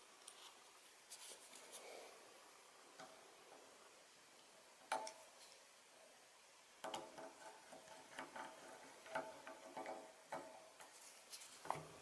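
Small hand screwdriver driving a screw into the plastic HVAC fan switch assembly: faint clicks, one sharper click about five seconds in, then a run of quick creaking ticks through the second half.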